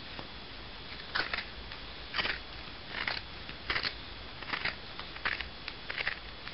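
Scissors snipping through a black ribbed knit sock being worn. About seven short crunchy snips come roughly once a second, starting about a second in.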